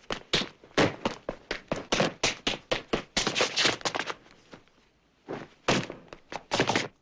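Foley artists striking props in quick succession: a dense run of thuds and hits, several a second. They thin out and pause about four and a half seconds in, then a few more come near the end.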